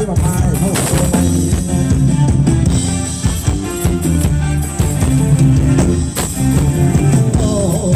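Live band playing upbeat Thai ramwong dance music, with a steady drum-kit beat and a bass line.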